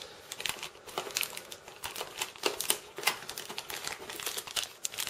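Plastic packaging crinkling in irregular crackles as a small wrapped accessory is handled and pulled from its cardboard box recess.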